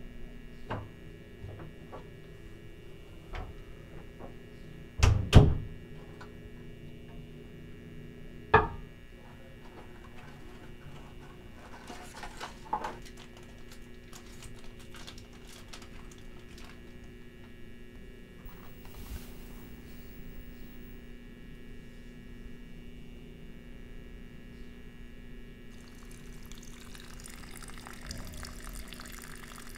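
Small objects and packaging handled at a bathroom sink: scattered light clicks and rustles, with two sharp knocks in quick succession about five seconds in and another knock about three seconds later. Water starts running into the sink near the end.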